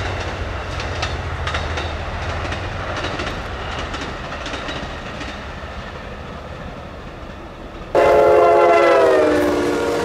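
Amtrak passenger train rolling past, its wheels clicking over rail joints, with a low rumble that fades over the first few seconds. About eight seconds in, a locomotive air horn sounds a loud multi-note chord that drops in pitch as it goes by.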